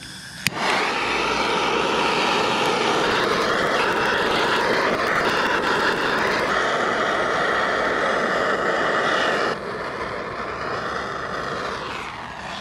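Handheld gas torch lit with a click, its flame then blowing steadily onto charcoal to start it. The flame drops in level about three-quarters of the way through and dies away near the end.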